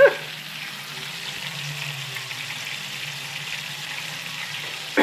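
Chicken pieces frying in oil in a pan, a steady sizzle, with a faint low hum underneath.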